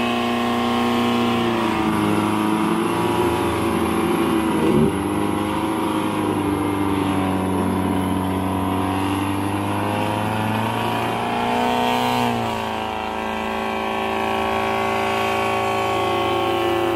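Off-road 4x4 vehicle engine running steadily under revs. Its pitch steps up about two seconds in and drops back about twelve seconds in, with a brief knock about five seconds in.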